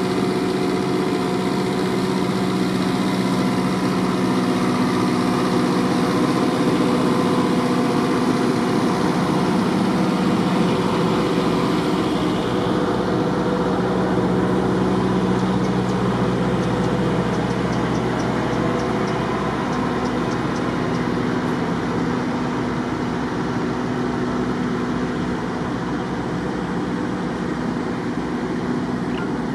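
Diesel locomotive engine idling, a steady low hum that shifts slightly in pitch about halfway through.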